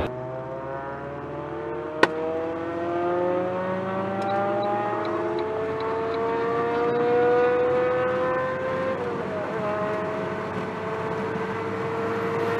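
Car engine heard from inside the cabin, pulling under steady acceleration, its pitch rising slowly for about nine seconds, then dropping a little and holding steady at cruise. A single sharp click about two seconds in.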